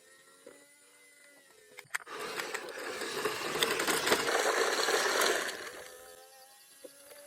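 Remote-control toy bulldozer's small electric motor and plastic gearbox whirring and grinding for about four seconds as it drives, starting after a click about two seconds in and fading away near six seconds. Faint electronic toy tones play before and after.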